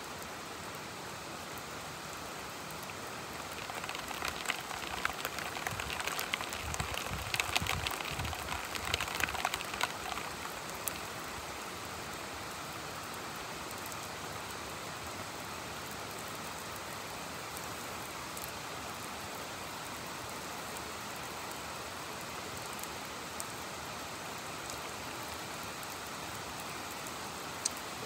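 Heavy rain falling steadily, swelling for several seconds about four seconds in into a louder, dense patter of individual drops with a brief low rumble, then settling back to a steady hiss.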